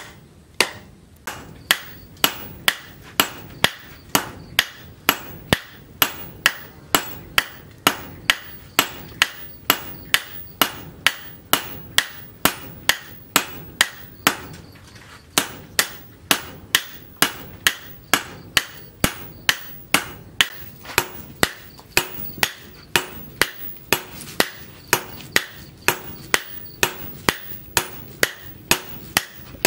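Hand-forging a red-hot steel machete blank: hammer blows on the hot blade over an anvil in a steady rhythm, about two a second, each with a brief metallic ring.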